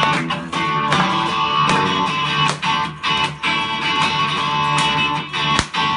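Strummed guitar playing an instrumental passage between the sung lines of a song.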